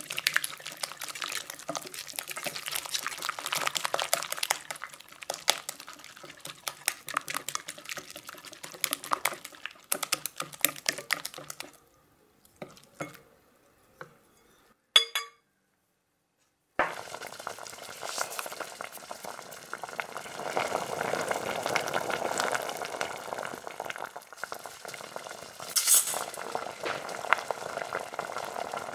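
Silicone-coated whisk beating egg, yolk and grated cheese in a glass bowl: rapid clicking and scraping for about twelve seconds, then a few light taps and one short ringing knock. After a brief silent gap, a pot of water boils steadily with dry spaghetti going in near the end.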